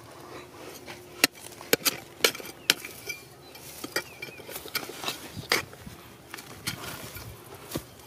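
A steel digging bar striking and prying at rock and loose stones, giving a run of sharp, irregular metallic clinks and knocks. The hardest hits fall in the first few seconds.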